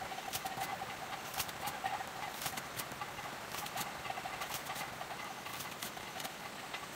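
A hoe chopping into dry, stony soil in irregular strikes, with a wavering tone running behind it.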